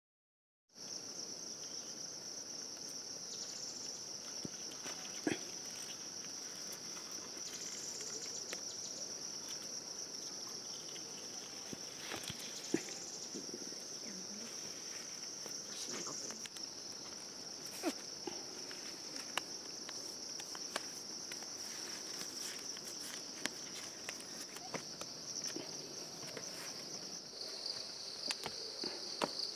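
Steady high-pitched drone of an insect chorus in the hillside vegetation, starting about a second in, with scattered clicks and rustles. Near the end the drone drops a little in pitch and the clicks come faster, as footsteps on a stony, leaf-strewn path.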